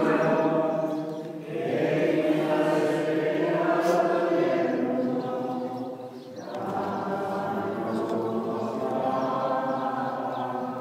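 Church congregation singing a hymn together, several voices in long sung phrases with brief breaks between them.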